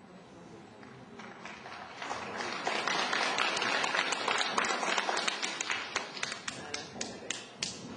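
Audience applauding: dense clapping builds about two seconds in, then thins out to a few scattered claps and dies away near the end.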